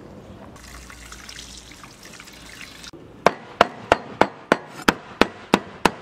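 A Chinese cleaver chopping blanched pork intestines on a wooden cutting board: nine sharp, even chops at about three a second in the second half. Before them comes a soft watery hiss.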